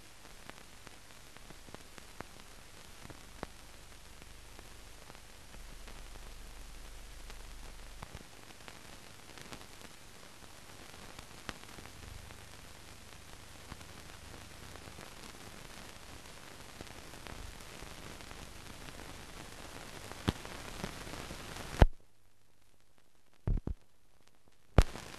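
Steady hiss and crackle with scattered clicks: the surface noise of a silent newsreel film with no recorded sound. The hiss cuts off suddenly about 22 seconds in after a loud pop, and two more loud pops follow near the end.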